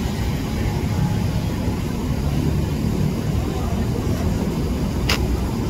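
Steady low rumble of background noise, with one short sharp click about five seconds in.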